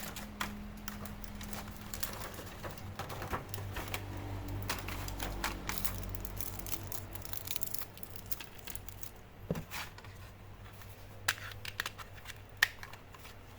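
Scattered small clicks, taps and rustling of hands handling a laptop hard disk and hard-disk caddy, with a few sharper clicks in the second half, the loudest near the end.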